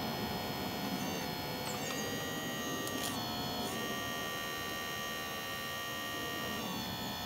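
Small electric-driven hydraulic pump of an RC hydraulic excavator whining steadily, its pitch shifting in small steps several times as the arm's valves are worked.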